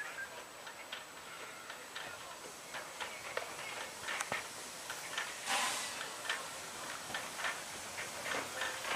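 Steam locomotive approaching slowly, with light irregular clicks about two a second and one short hiss of steam about five and a half seconds in.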